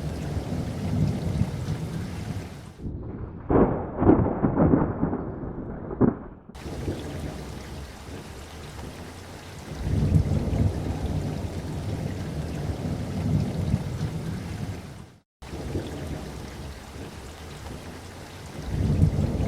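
Thunderstorm: steady rain with rolling thunder that swells and fades. From about three to six seconds in, a louder, muffled crackling thunderclap. A brief dropout to silence comes about fifteen seconds in.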